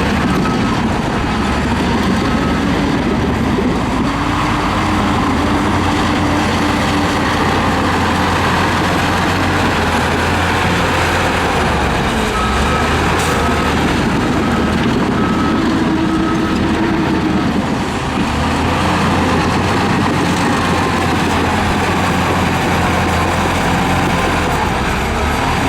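Shantui bulldozer's diesel engine working under load, its pitch rising and falling as the machine pushes dirt. A backup alarm beeps in short spurts near the start and again around the middle.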